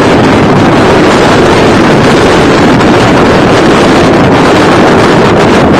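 Storm wind blasting across the microphone: a loud, steady rush of noise with no let-up.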